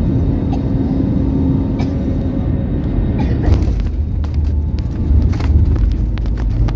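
Jet airliner cabin noise on landing: the steady low roar of the turbofan engines and airflow, then from about three seconds in the wheels meet the runway, with heavy thumps and rattling knocks in the cabin as the plane rolls out.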